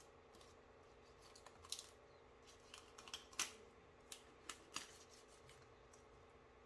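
Kitchen knife cutting into a raw whole chicken as it is deboned, giving a handful of sharp clicks and snaps from the blade and the carcass; the loudest is about three and a half seconds in. Otherwise near-silent room tone.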